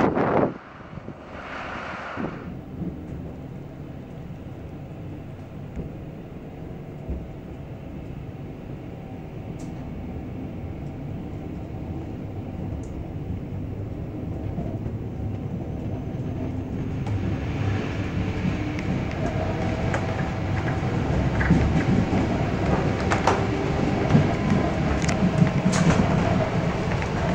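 Train heard from inside a passenger coach as it pulls away and gathers speed: a low rumble that grows steadily louder through the second half, with the wheels clicking over rail joints and points. A short burst of noise sounds about two seconds in.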